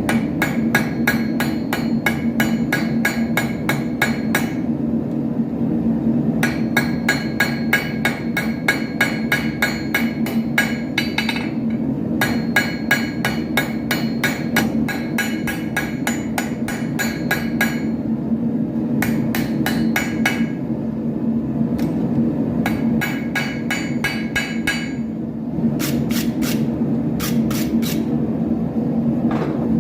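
Hand hammer forging iron on an anvil: runs of quick, even blows, about three or four a second, with a ringing note on each strike and short pauses between runs. A steady low hum runs beneath.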